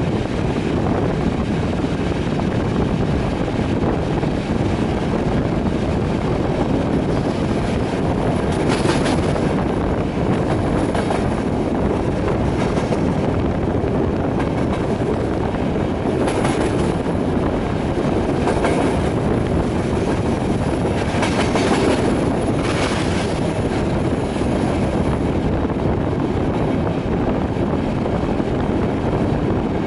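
Passenger train running, heard from beside an open carriage window: a steady rumble of wheels on rail mixed with wind. Several brief, high-pitched rushes of wheel noise come in the middle of the stretch.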